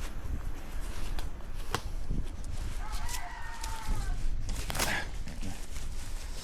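A short, slightly falling animal call, bird-like, about halfway through, among scattered knocks and a brief hiss soon after, over a steady low rumble.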